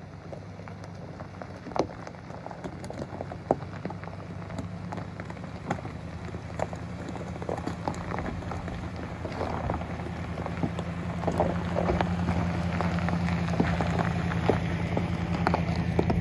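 GMC Yukon SUV driving slowly over a loose gravel and stone track: a low steady engine hum that grows louder as it approaches, with the tyres crunching and popping stones in scattered sharp crackles.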